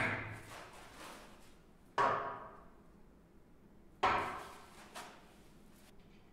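Three hammer blows on steel, about two seconds apart, each ringing briefly and fading, with a lighter knock after the last.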